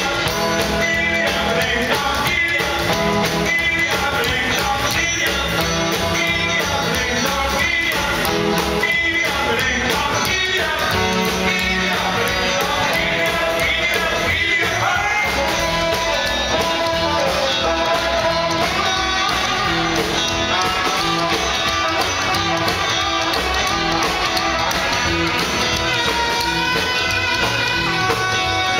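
A rock and roll band playing live, with electric guitars, upright bass and drums, and a man singing.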